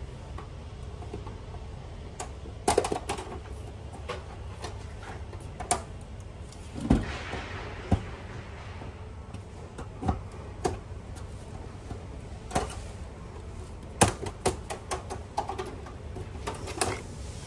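Irregular sharp clicks and snaps of the clips of an LED TV panel's thin black plastic front frame being pried loose and lifted off, with a brief scraping rustle about seven seconds in.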